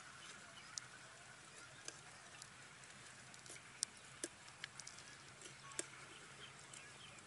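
Scattered faint clicks and ticks of a metal spoon knocking against a metal strainer as watermelon flesh is scooped and pressed, over a faint steady hiss.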